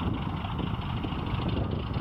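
ChME3 diesel shunting locomotive's engine working hard under load as it hauls a freight train, a steady low rumble.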